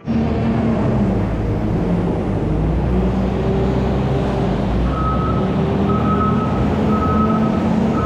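Volvo L70 wheel loader's diesel engine working, its note shifting in pitch as it pushes and manoeuvres. From about five seconds in, its reversing alarm beeps about once a second.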